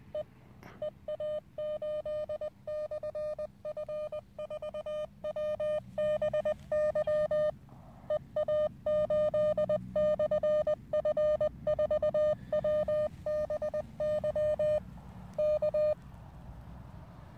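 Morse code sidetone from a Weber MTR CW transceiver: a single steady mid-pitched tone keyed in dots and dashes, stopping about a second before the end.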